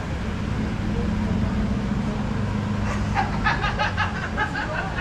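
Steady low background rumble with a hum, and a person talking from about three seconds in.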